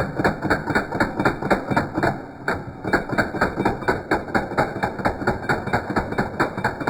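Rapid, even metallic clicking from a tool, about five clicks a second, pausing briefly a little over two seconds in.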